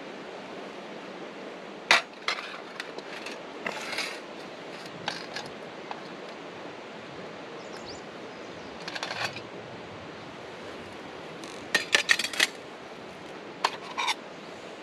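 Stainless steel camp cooking pots and their folding wire handles clinking against each other and the stove stand as they are handled, a scatter of short sharp metallic clinks with a quick cluster of several near the two-thirds mark, over a steady background hiss.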